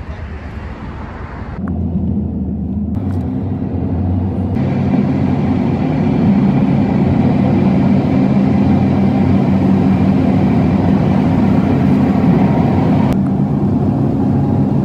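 Car on the move: a steady drone of engine and road noise, which gets louder about two seconds in and then holds steady.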